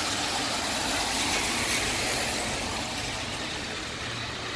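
Car tyres hissing on a rain-soaked road as traffic passes, the hiss easing off a little in the last second or two, with rain falling.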